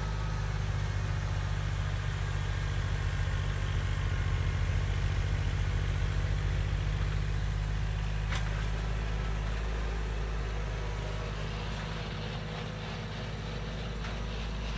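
Kubota L2501 compact tractor's three-cylinder diesel engine running under load, driving a rear-mounted 68-inch MK Martin Meteor snowblower as it throws snow. A steady low rumble, a little louder a few seconds in and easing near the end, with a single sharp click about eight seconds in.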